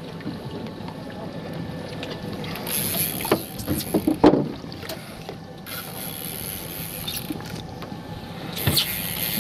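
A small boat at sea: water sloshing against the hull, with a few knocks and clicks clustered about a third of the way in and another knock near the end.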